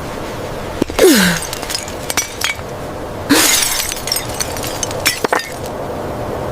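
Glass breaking: a sudden crash about a second in with a short falling tone, a second crash at about three and a half seconds, and scattered sharp clinks of glass pieces between and after.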